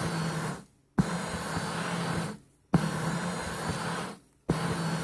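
Electric foot massager's motor running with a steady hum, cutting out briefly three times, about every one and three-quarter seconds, and starting up again each time with a sharp click. Picked up from inside the massager.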